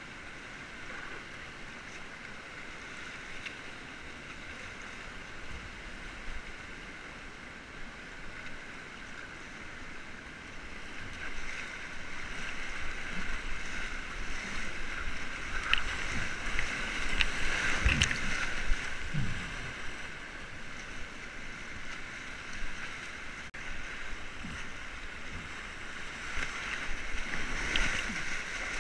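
Whitewater rapids rushing around a kayak, with water splashing over the bow and paddle. The rush grows louder and choppier from about ten seconds in, with the biggest splashes a few seconds later and again near the end.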